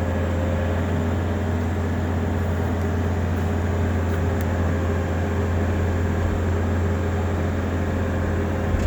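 Bobcat T650 skid steer's diesel engine running steadily, a deep, even drone.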